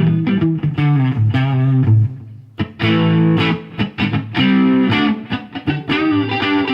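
Gretsch Electromatic Pro Jet electric guitar played on its neck pickup through a Marshall DSL15C combo amp, with picked chords and single-note lines and a brief pause about two seconds in.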